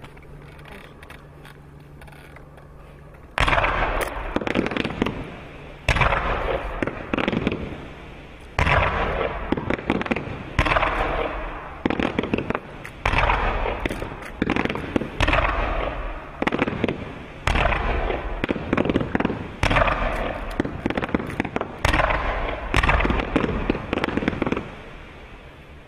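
Multi-shot firework cake firing a rapid series of aerial shots, about one every second or two, each a loud bang followed by a burst of crackling. It starts a few seconds in and stops near the end.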